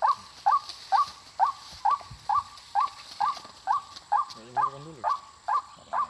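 White-breasted waterhen (ruak-ruak) calling, a short hooked note repeated at a steady pace of about two calls a second.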